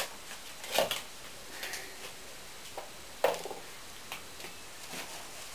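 A few separate knocks and clicks from someone handling gear at a workbench, the loudest about three seconds in; no welding arc is running yet.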